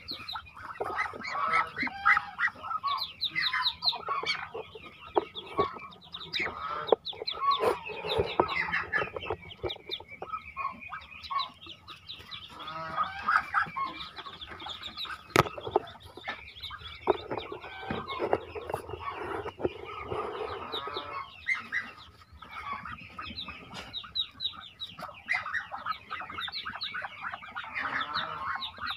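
Many newly hatched Muscovy ducklings peeping continuously in a crowd of high, rapid chirps, with a few sharp knocks from the wooden nest boxes being handled.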